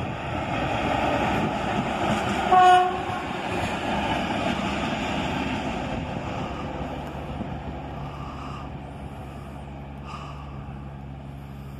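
Diesel shunting locomotive with a single wagon passing close by on the track, its engine and wheels loud at first and then fading as it draws away. About two and a half seconds in, one short horn blast sounds.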